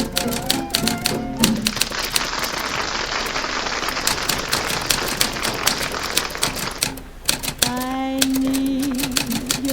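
Typewriter keys clacking, several strikes a second, over an old radio broadcast. The broadcast's music fades into a stretch of noise, and a held, wavering instrument note comes in near the end.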